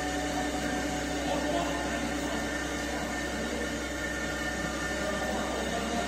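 Vertical CNC wheel-repair lathe turning the face of a spinning alloy wheel: a steady machine hum with several held tones over a hiss.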